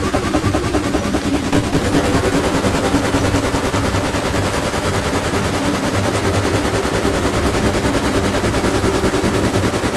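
Kids' ride-on toy car driving, with a continuous rapid clattering rattle that holds steady.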